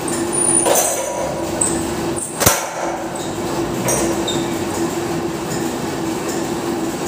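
Steady gym room rumble with a constant hum, and one sharp clank of gym weights about two and a half seconds in.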